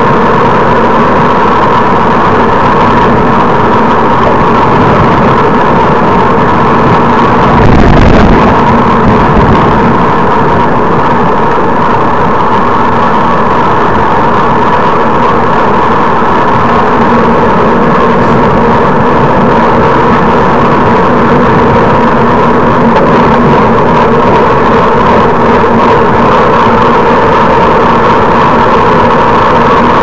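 Steady wind and road noise on a bicycle-mounted camera's microphone while riding along a road. A heavier low buffet comes about eight seconds in.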